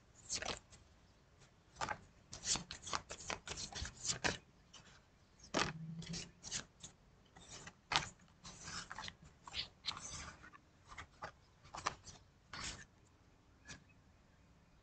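Tarot cards being shuffled and handled: a string of short, crisp card sounds in irregular clusters, densest in the first few seconds.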